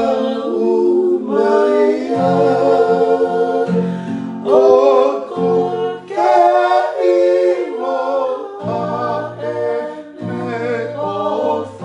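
A man singing a Tongan hymn with his acoustic guitar, the voice coming in suddenly after a short pause and carrying on in long held notes over the low guitar notes.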